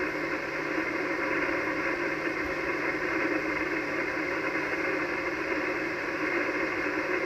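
Steady hiss of 80-metre band noise from an Icom HF transceiver receiving single sideband, held to the narrow voice passband of the receiver, heard between transmissions.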